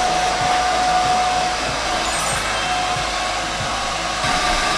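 Handheld hair dryer blowing steadily while drying wet hair. A steady whine in its airflow fades about a second and a half in, and the blowing gets a little louder near the end.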